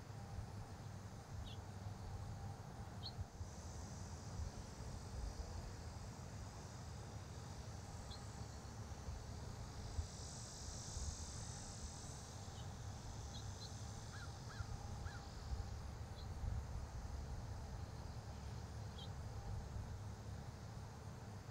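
Faint outdoor ambience: short bird chirps, one every few seconds, over a soft high hiss that swells briefly about halfway through, and a low rumble.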